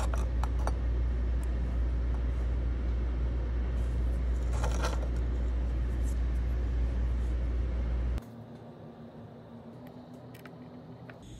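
A loud, steady low rumble runs until about eight seconds in and then cuts off suddenly. Over it come light metallic clicks as silver ring parts and a tool are set on honeycomb soldering blocks, with a cluster about five seconds in. A few faint clicks follow after the rumble stops.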